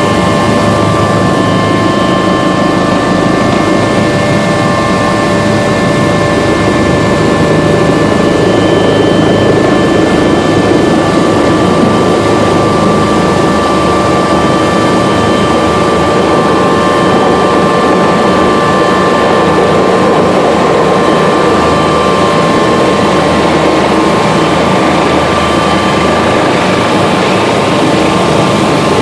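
Helicopter in flight heard from inside the cabin: steady, loud engine and rotor noise with a high whine of several constant pitches over it.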